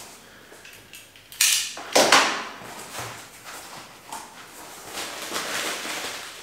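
Cardboard box and packaging being handled: the box's flaps and plastic-wrapped contents rustle and crinkle, with two loud scraping rustles about a second and a half and two seconds in, then softer steady rustling of paper and plastic.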